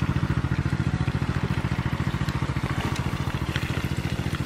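Diesel water pump engine running steadily with a fast, even firing pulse, pumping water through a pipe to soak rice straw.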